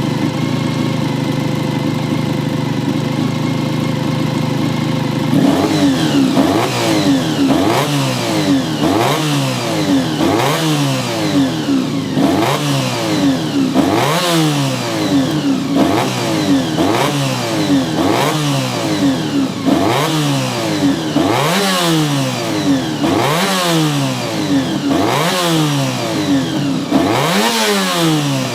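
Honda NC30 (VFR400R) V4 engine with gear-driven cams and an aftermarket exhaust, idling steadily. About five seconds in it starts being revved in quick throttle blips, roughly one a second, each rising and falling sharply in pitch.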